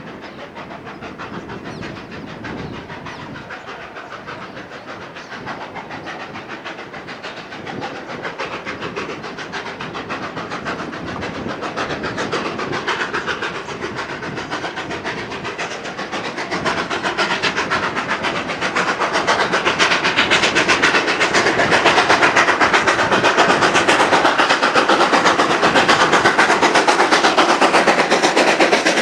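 Steam-hauled passenger train approaching, its running noise a fast, dense rhythm that grows steadily louder for about twenty seconds and then holds at its loudest.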